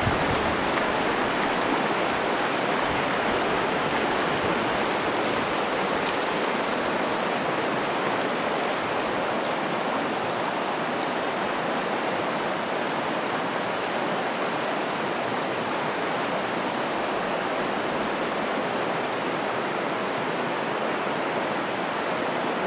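Steady rush of a fast mountain creek running over boulders and riffles.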